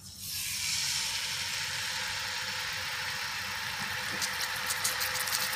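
A pepper-and-poppy-seed-marinated seer fish steak goes into hot oil in a frying pan and starts sizzling at once; the sizzle holds steady, with crackling pops joining from about four seconds in.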